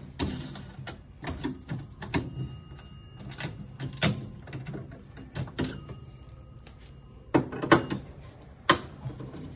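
Irregular metal clanks and knocks from tools and parts being handled during air conditioner repair work, several ringing briefly after the strike, over a steady low hum.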